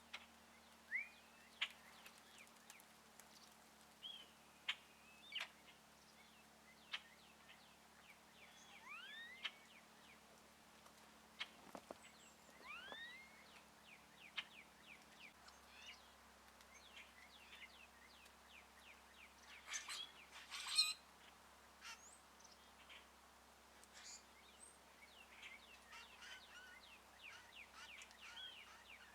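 Birds chirping and calling sparsely, with short rising chirps scattered throughout and a louder burst of harsher calls about twenty seconds in.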